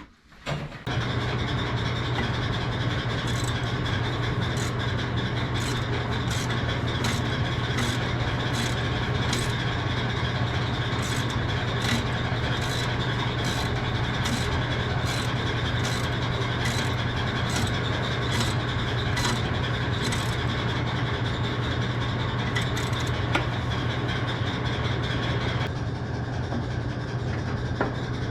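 A machine starts up about a second in and runs steadily: a low, even hum with a regular ticking about twice a second.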